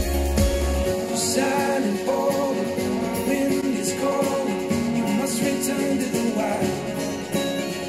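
A song with singing and guitar played back through Yamaha HS8 studio monitors and picked up by room microphones, switching about a second in to the same song on Adam Audio T8V monitors; the deep bass drops away at the switch.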